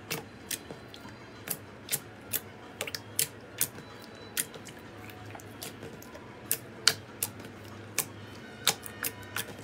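Glossy slime being pressed, folded and stretched by hand, giving sharp irregular clicks and pops as trapped air pockets burst, roughly two a second, a few of them much louder than the rest.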